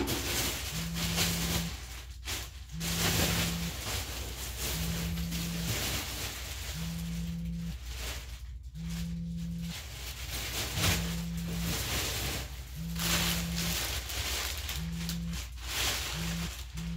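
Plastic trash bags and stored junk rustling and shifting as they are rummaged through by hand. Under this a low buzz pulses on and off about every two seconds.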